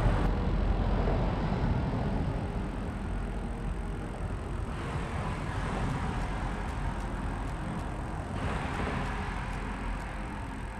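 Wind buffeting the microphone: a steady low rumble with a hiss over it. The hiss drops back abruptly about halfway through and comes up again near the end.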